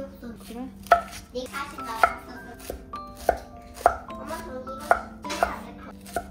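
Kitchen knife chopping on a cutting board: separate, unhurried strokes at an uneven pace, roughly one to two a second, the kind of chopping done for dumpling filling.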